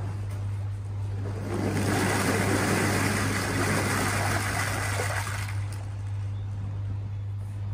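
Euro-matic hollow plastic pond insulation balls pouring out of a cardboard box onto the floating layer of balls, a dense clatter that swells about a second and a half in and dies away after about four seconds. A steady low hum runs underneath.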